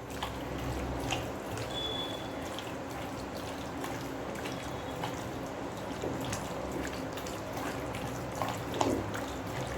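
Wet squelching and sticky clicks of boneless chicken pieces being mixed by hand with a thick ground masala paste in a bowl.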